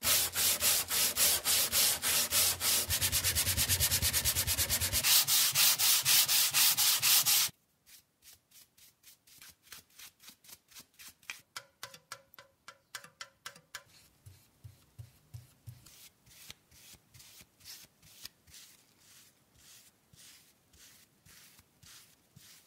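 Hand sanding of a wooden plane body with 80-grit sandpaper on a sanding block: loud, quick back-and-forth strokes that stop suddenly about seven and a half seconds in. Then much quieter rhythmic strokes follow: a stick stirring stain in a metal tin, and later a paintbrush spreading it over the wood.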